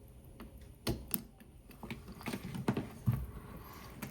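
Scattered light clicks and taps of small watchmaking tools and objects being handled on a workbench, about five sharp ones in a few seconds.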